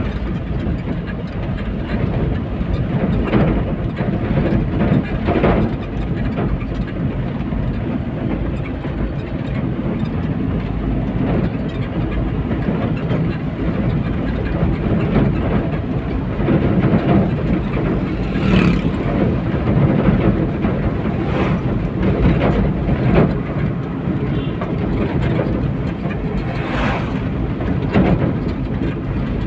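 Road noise heard inside a moving car's cabin: a steady low rumble of tyres and engine, with a few short knocks and jolts scattered through it.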